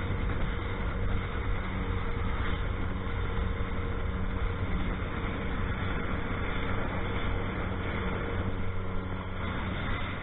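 Motor fishing boat under way: its engine runs at a steady hum, mixed with water rushing and splashing along the hull.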